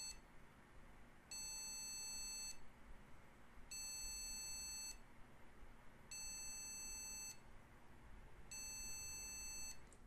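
Motherboard POST beep speaker on a PC that won't boot, sounding long, evenly spaced high-pitched beeps, each just over a second long, about every two and a half seconds. It is a five-beep error code, looked up as a CPU error and traced to the i5-9400's memory controller.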